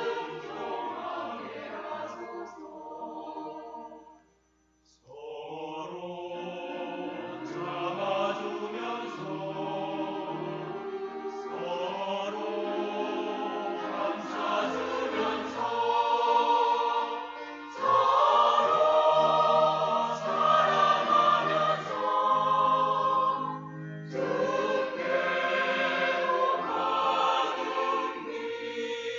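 Church choir singing a hymn in parts. The choir breaks off briefly about four seconds in, comes back, and sings louder from about eighteen seconds in. The phrase ends right at the close.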